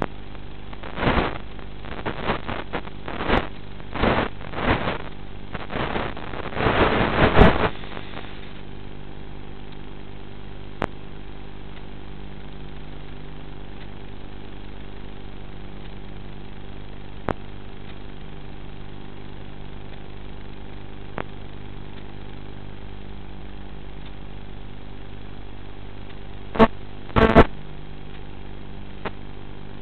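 Electric motor and propeller of a TBS Caipirinha flying wing heard through its onboard FPV microphone during cruise: a steady drone of several even tones. Wind buffets the microphone in gusts for the first eight seconds, and a short double gust comes near the end.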